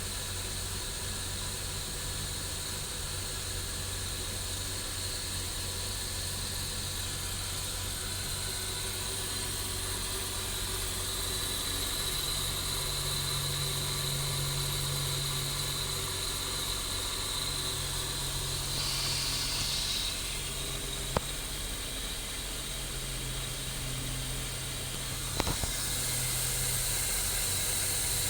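Holden Commodore's 3.8-litre V6 engine idling steadily, with a constant high hiss over it. Two sharp clicks come in the second half.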